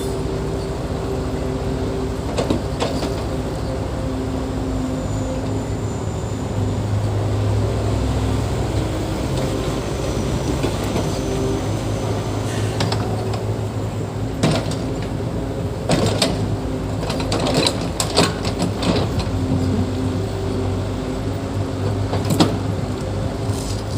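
Diesel engine of heavy earthmoving equipment running steadily, with scattered sharp metallic clanks and knocks, most of them in the second half.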